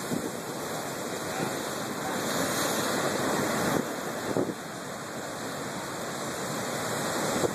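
High Pacific surf breaking and washing over a rocky shore: a continuous rushing of water that swells about two to three seconds in, eases after about four and a half seconds, then builds again.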